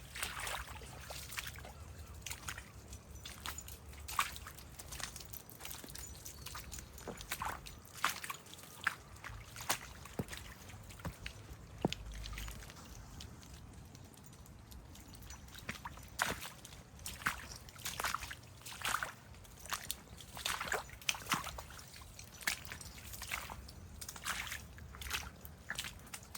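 Steps sloshing and squelching through water-logged, flooded ground: a run of irregular wet splashes and squelches.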